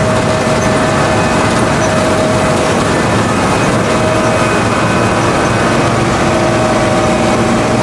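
New Holland combine harvester running steadily at work, a constant engine and machinery noise with a steady whine over it.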